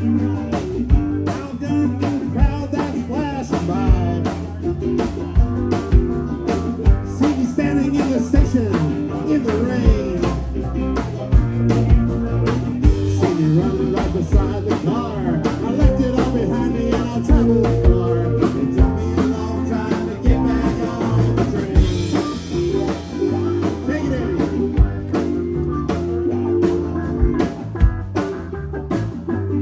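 A rock band playing live, an instrumental passage with a steady drum-kit beat under bass, electric and acoustic guitars, electric mandolin and keyboards.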